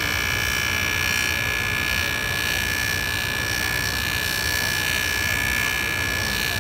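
JoolTool rotary abrasive tool running with a steady high whine while it lightly burnishes a scratch out of a stainless steel Rolex bracelet link.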